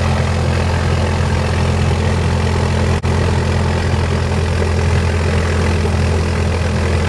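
Piper light aircraft's piston engine and propeller idling steadily, heard from inside the cabin as a loud, even low drone. It cuts out for an instant about three seconds in.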